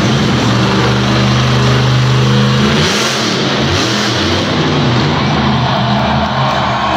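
Grave Digger monster truck's supercharged V8 engine revving hard and held at high revs, the pitch dipping and climbing again about three seconds in as the throttle is worked to balance the truck in a wheelie on its rear tires.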